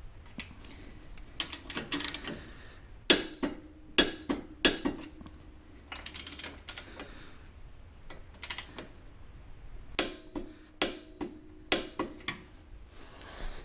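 Click-type torque wrench tightening motorcycle rear shock mounting bolts: short bursts of ratcheting, then sharp metallic clicks in two groups, about three seconds in and about ten seconds in, as the wrench reaches its set torque of 37.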